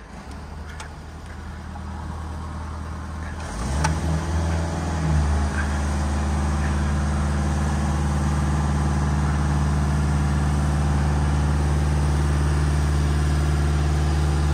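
Engine of a crane lift running with a steady hum, rising and picking up about four seconds in, then holding steady. A couple of light clicks sound early on and at the change.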